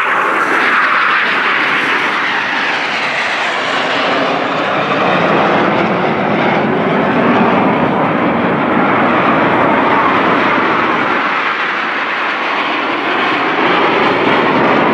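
Aermacchi MB-339 jet trainers, with Rolls-Royce Viper turbojets, flying low past in formation: a loud, continuous jet roar that drops in pitch over the first few seconds as they pass, then swells and fades as further jets go by.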